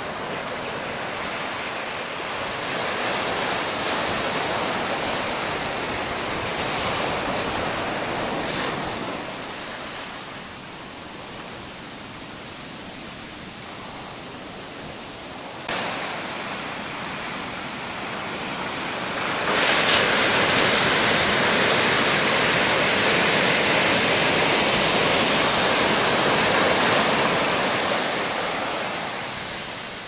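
Ocean surf breaking and washing up a sandy beach, a steady rushing noise that swells and eases with each wave. A bigger wave rushes in about two-thirds of the way through and stays loud for several seconds, and there is a sharp click about halfway.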